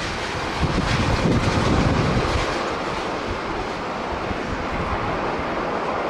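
Strong wind buffeting the microphone over the steady roar of a jet airliner's engines on final approach, with a heavier gust from about half a second to two seconds in.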